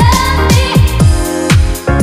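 Background electronic dance music with a heavy kick drum on a steady beat and a synth melody over it.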